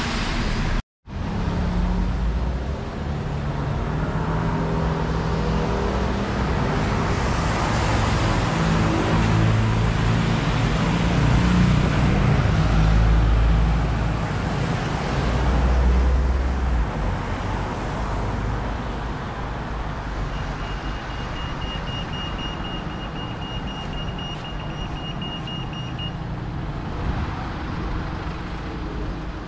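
City street traffic: cars and other vehicles running and passing, loudest in the middle. A steady high-pitched tone sounds for about six seconds in the second half, and the sound cuts out briefly about a second in.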